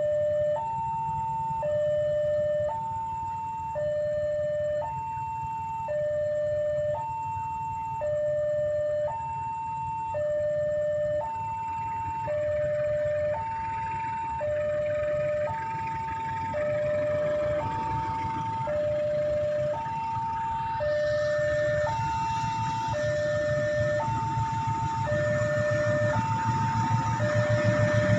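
Railway level-crossing warning alarm sounding a steady two-tone signal, a high and a low tone each about a second long, alternating: the warning that a train is approaching. An approaching train's rumble grows louder over the last several seconds.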